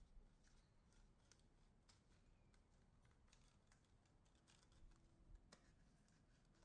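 Near silence: faint room tone with scattered light clicks.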